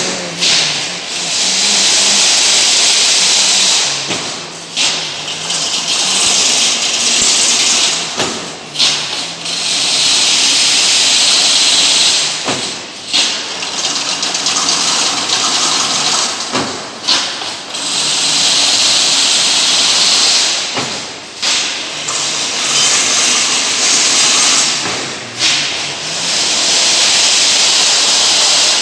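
Automatic chain-link fence weaving machine running through its cycle: a steady high hissing rattle of wire being fed and twisted for about three seconds, broken by a sharp clunk, repeating about every four seconds.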